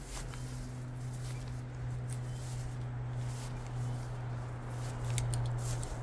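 Footsteps and light rustling on dry ground, with a few sharp crackles near the end, over a steady low hum.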